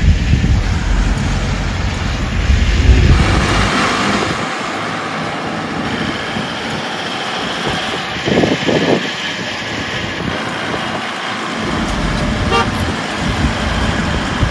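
Engine and road noise of a moving Tempo Traveller van, with a vehicle horn tooting briefly.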